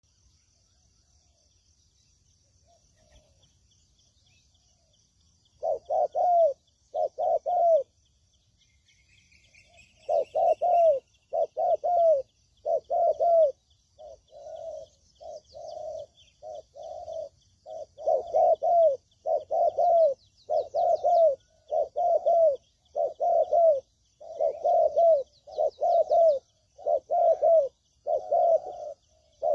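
Spotted dove (tekukur) cooing: a lure recording of repeated groups of low coos, starting about six seconds in and running on with short pauses, some phrases softer than others. Faint high chirping continues in the background.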